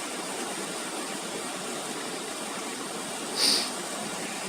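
Steady rushing of a waterfall, an even hiss of falling water, with one short high-pitched squeak about three and a half seconds in.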